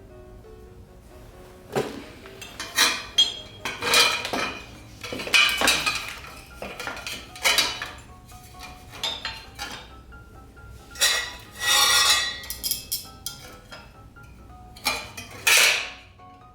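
Metal tools and parts clinking, clanking and scraping in irregular bursts while a vending machine's refrigeration fan motor is taken apart and refitted to a new base. Soft background music runs underneath.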